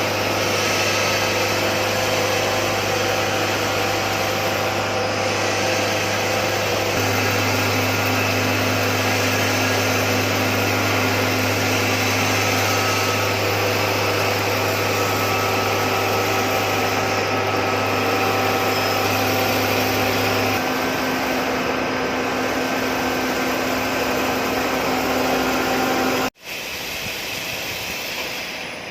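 Steady whirring of a running metalworking machine, with a strong hum and several steady tones under a hiss. It cuts out abruptly about 26 seconds in and resumes at once somewhat quieter.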